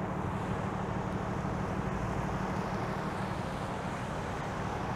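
Steady road traffic: cars turning and passing through an intersection, a low, even rumble of engines and tyres.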